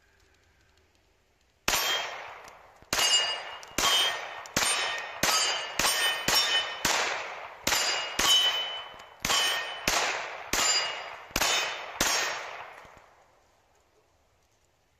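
A string of about fifteen 9mm shots from a Glock 19 Gen5 pistol at a steady pace of one to two a second. Each shot is followed by the ring of a struck steel target plate, and the ringing fades out after the last shot.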